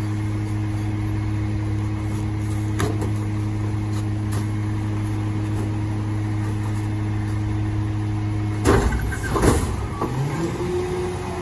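Diesel engine of a Loadmaster rear-loader garbage truck idling steadily. About nine seconds in there are two loud clunks, and then the engine speeds up with a rising tone as the packer hydraulics are engaged to compact the load.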